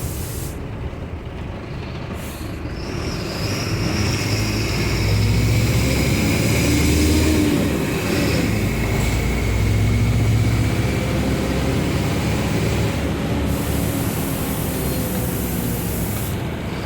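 Bus engine and road noise while driving, a steady low hum with a faint whine above it, growing louder a few seconds in.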